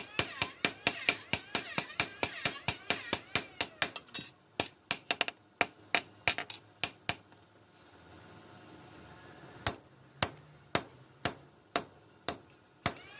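Hammer striking metal: a fast run of about four blows a second, then a short pause, then slower blows about two a second near the end.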